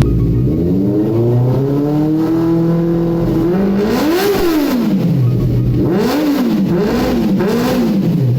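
Benelli TNT 600i's inline-four engine revved while the bike stands still. The engine climbs slowly at first, gives one sharp blip of the throttle about four seconds in, then three quick blips near the end, each falling back to idle.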